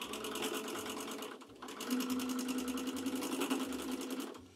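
Home sewing machine running a straight stitch in rapid, even needle strokes, the needle punching through the dense zigzag thread of a free-motion monogram. It pauses briefly about a second and a half in, runs again, and stops near the end.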